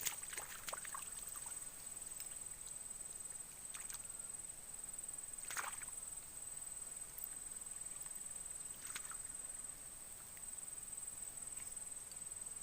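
Outdoor ambience with a steady, high-pitched insect chirring, and a few brief splashes or knocks: a cluster near the start, then single ones about four, five and a half and nine seconds in.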